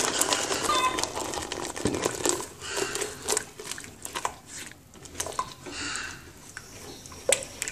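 Spatula stirring thick sauce in a metal saucepan, scraping and tapping against the pan in a run of short clicks.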